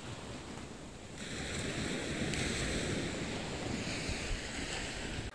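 Small waves from a flat sea washing onto the shore, their noise swelling about a second in, with wind buffeting the microphone.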